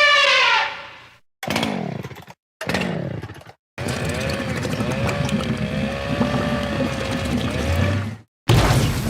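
A run of cartoon sound effects with short silences between them: a wavering tone dying away, two brief effects falling in pitch, then about four seconds of a motor-like buzz with a wavering whine, and a sudden hit near the end.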